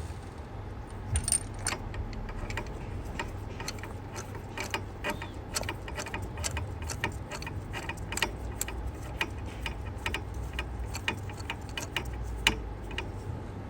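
Metal clicks and taps of a 14 mm spark plug socket and ratchet being worked while a spark plug is changed, irregular light clicks over a low hum.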